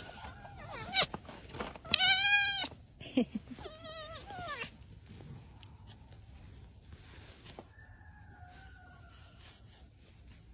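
Red fox giving a loud, high, wavering whine about two seconds in and a softer one about four seconds in, an aggressive protest at the petting stopping. Then only faint little whines as the petting resumes.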